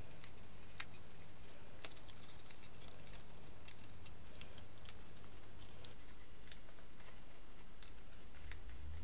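Folded card star being pressed and handled by hand: faint scattered clicks and crackles of the card, over a steady low hum.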